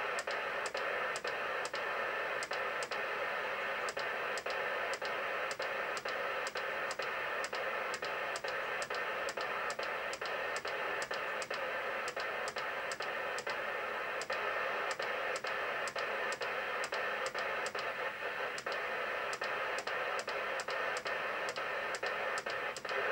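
TTI TCB-660 CB radio's speaker giving steady receiver hiss on quiet channels while it is stepped through the UK FM channels by hand. Regular sharp clicks, about three a second, run through the hiss.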